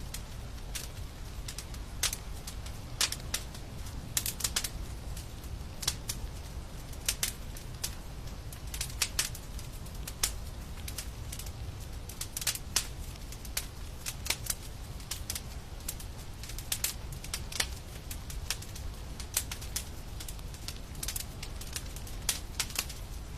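Wood fire crackling in a fireplace: irregular sharp pops and snaps, some close together, over a steady low rumble.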